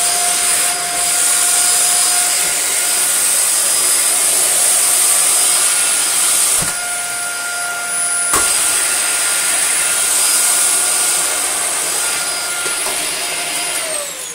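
Dyson Small Ball upright vacuum cleaner running at full speed with a steady high whine, on test after reassembly with an air leak still present, which the repairer traces to the internal hose. Two knocks from handling the machine come about halfway through. Near the end it is switched off and the whine falls in pitch as the motor runs down.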